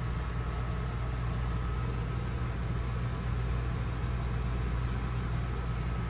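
Steady mechanical hum, strong and low, with a faint constant high tone above it.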